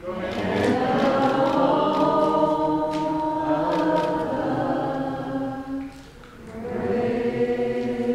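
Choral music: many voices singing long held chords. It fades about six seconds in, then swells back with a new chord.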